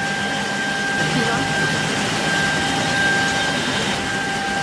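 Semi-automatic edge banding machine running: a steady, even machine noise with a constant whine.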